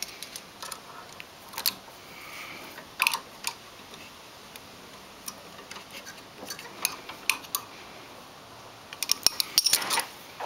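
Hand tools working on the metal of a snowblower adjustment bracket: scattered metallic clinks and clicks, bunching into a quick run near the end.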